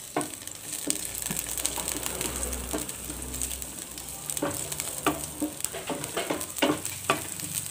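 Sliced garlic and shallots sizzling in a little hot oil in a pan, stirred and pushed about with a wooden spatula. A run of sharper clicks and knocks comes in the second half.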